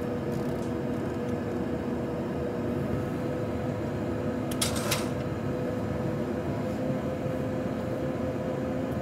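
Steady cockpit drone with a constant hum inside a Boeing 737-800 flight simulator on approach, with one short hiss about halfway through.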